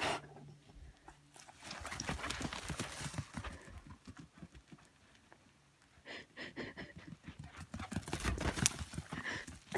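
A poodle's paws pounding fast on loose dry dirt as it runs flat out: close by about a second and a half in, fading as it races off, then coming back and loudest near the end as it sprints up close.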